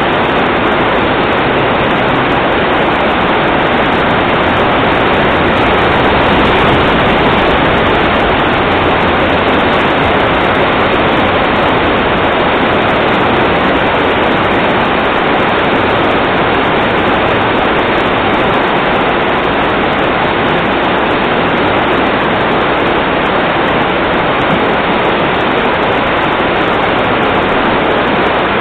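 Floodwater rushing steadily, a loud, even roar of water.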